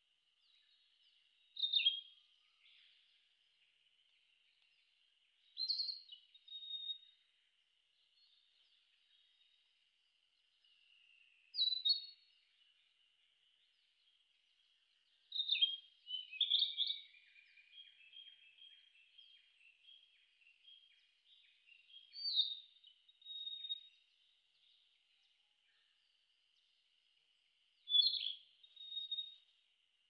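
Male narcissus flycatcher singing: about six short whistled phrases, one every five seconds or so, with a longer, busier run of song about halfway through. A faint steady high tone runs underneath.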